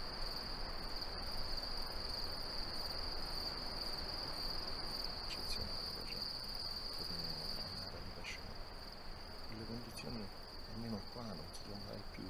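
Crickets chirring, a continuous high-pitched trill held steady over a soft, even background hiss.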